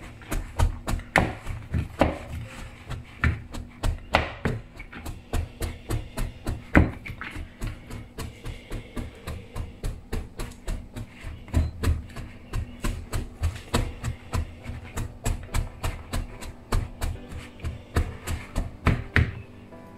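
The rim of a steel tumbler jabbed again and again into damp wheat-flour pittu dough in a bowl: a quick, even run of dull taps, several a second, chopping the dough into small crumbs. The taps stop just before the end.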